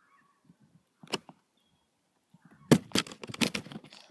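Handling noise from the camera: one short knock about a second in, then a quick run of knocks and rubbing on the microphone from about two and a half seconds in as the camera is swung around.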